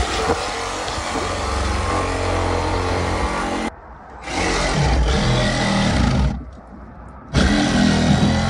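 Steady vehicle engine noise with a hiss over it, broken twice by sudden cuts.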